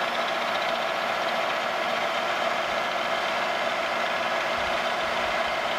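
Milling machine spindle running steadily with a small end mill cutting away brass braze at the bottom of a bored lever hub.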